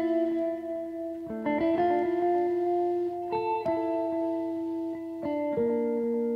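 Background music: sustained chords that change every half second to a second or so.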